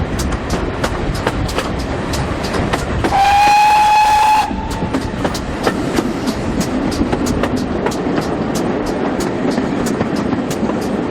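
A steam train running with a regular clatter about three times a second. About three seconds in, the GWR Manor Class locomotive's steam whistle sounds one steady note for about a second and a half, the loudest sound here.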